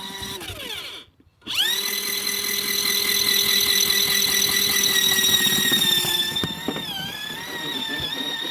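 Portable washing machine's electric motor whining steadily. It cuts out briefly about a second in, then starts again and holds an even pitch, wavering slightly near the end.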